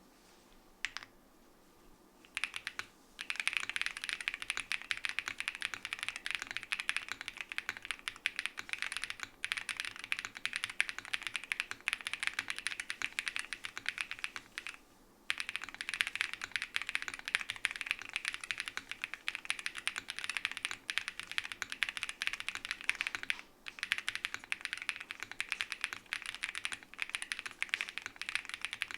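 Fast typing on a Space80 mechanical keyboard with a gasket-mounted polycarbonate plate, foam dampening, Keygeek Peachy switches and SW Wild keycaps. One lone keystroke about a second in, then dense runs of keystrokes from about two seconds in, broken by a few short pauses.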